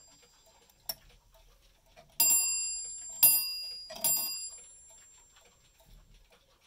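The brass bell of a Zaanse clock struck three times at uneven intervals, each stroke ringing and fading, after a light click about a second in. The clock's chime does not work on its own.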